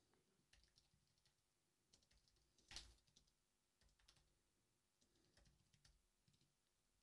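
Faint computer keyboard typing: scattered key clicks, with one louder keystroke about three seconds in.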